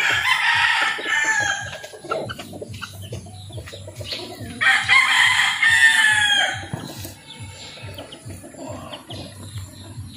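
A rooster crows twice, once right at the start and again about halfway through, each crow lasting about two seconds. Quieter short rustling sounds fall in between.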